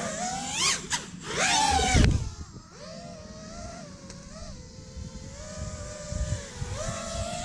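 5-inch FPV drone's motors and propellers whining, with two sharp throttle punches that rise steeply in pitch in the first two seconds, the second the loudest. The drone then settles into a steadier, lower whine with small rises and dips in pitch as the throttle is worked.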